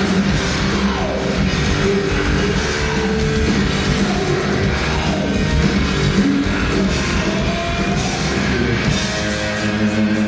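Heavy metal band playing live and loud: distorted electric guitars over a pounding drum kit, with a few sliding guitar notes.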